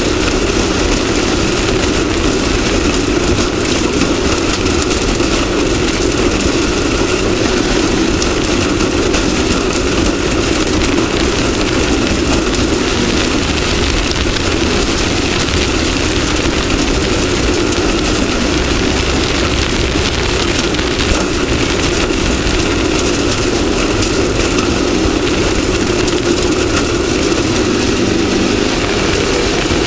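Off-road race vehicle running at a steady pace: a constant engine drone mixed with rough road noise, with no big revs or pauses.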